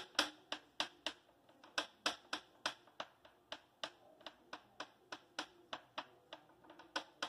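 Hand patting and pressing buckwheat-flour paratha dough flat on a greased polythene sheet: a run of quick, uneven pats, about three a second.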